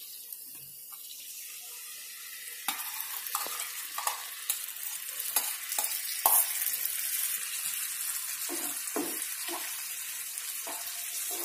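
Tomato-onion masala sizzling in a non-stick frying pan as curd is added and stirred in, with a spatula scraping and tapping through the mixture. The sizzle grows louder about three seconds in.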